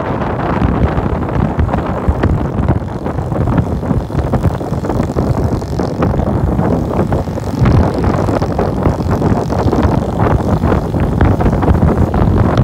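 Steady noise of travel in a moving car: engine, tyres on the road and wind buffeting the microphone, fluttering without a break.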